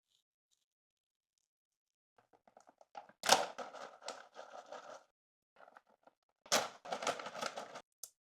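Kitten eating cat food: quick crunching and clicking in two bursts, each starting sharply, about three seconds in and again about six and a half seconds in.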